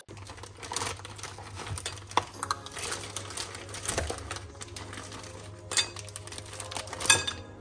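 Seafood boil of crab, mussels, clams and shrimp tipped from a plastic bag into a glass bowl: shells clattering and clinking against each other and the glass in many small knocks, the loudest about seven seconds in.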